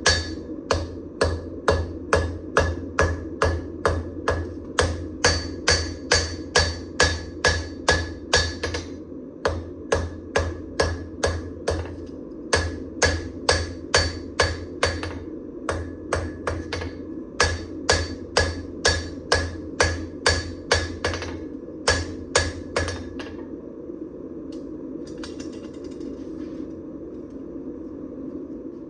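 Hand hammer blows on hot damascus steel over an anvil, about three ringing strikes a second in runs with short pauses, stopping about twenty-three seconds in. A steady hum runs underneath.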